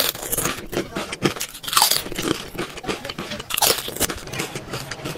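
A man biting and chewing food close to the microphone: a grilled chicken drumstick, then a flatbread wrap, heard as many short, irregular crunches and mouth clicks.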